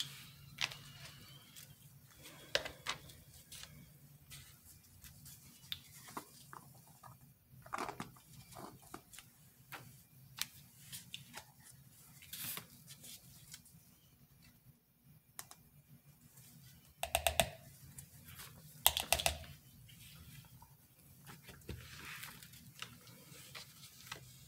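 Light clicks, taps and rustles of red plastic measuring spoons, a plastic mica jar and a clear plastic cup being handled with gloved hands. Two short clusters of rapid clicking, the loudest sounds, come about two-thirds of the way in.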